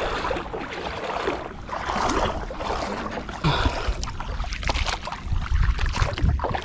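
Shallow lake water sloshing and lapping close by, with small clicks, and a low rumble on the microphone from about four seconds in.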